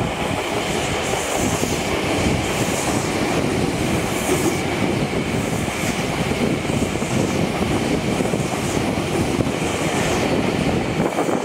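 Tokyu 5000 series eight-car electric train passing at speed: steady rumble of wheels on the rails, with the high hiss rising and falling about every second and a half as each car goes by.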